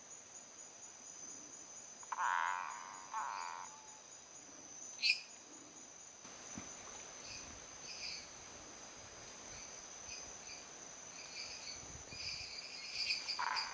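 Male Boana multifasciata tree frog giving short pulsed territorial calls, two about two seconds in and another near the end, at the sight of a rival male. Dendropsophus minutus treefrogs call with short higher notes in the background over a steady high insect trill, and a single sharp click comes about five seconds in.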